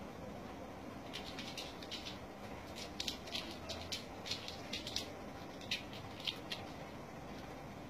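American shorthair kitten's claws and paws scrabbling on carpet as it leaps and pounces: an irregular run of short scratchy ticks over a steady low hiss, busiest from about a second in until near the end.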